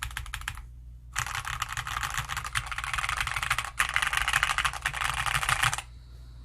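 Fast typing on a Bakeneko65 mechanical keyboard fitted with WS Aurora Clear switches lubed with 205g0, the switches giving a crunchy sound. The key presses pause briefly about a second in, then run on in a dense stream and stop near the end.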